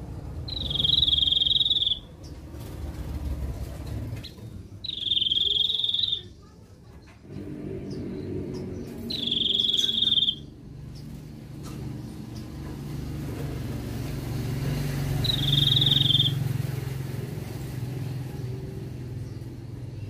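A caged 'sniper' bird whistling four long, level, high notes, each lasting about a second and a half and spaced four to six seconds apart; the last note is shorter.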